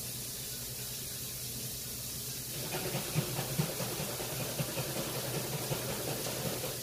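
Kitchen tap running into the sink as plastic containers are rinsed out for recycling. From about two and a half seconds in, the water splashes unevenly against the plastic, with small knocks as the containers are handled.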